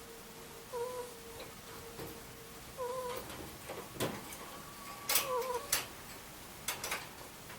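Sleeping Angora ferret snoring with a soft, squeaky 'coo-coo' sound, a short wavering peep about every two seconds, three times. Several sharp clicks come between them, loudest a little past the middle.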